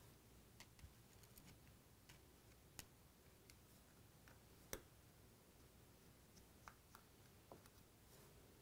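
Faint, scattered small clicks and ticks of a Phillips screwdriver backing tiny screws out of an iPod Touch's metal mid plate, with the screws being laid down one by one. The sharpest click comes a little past halfway.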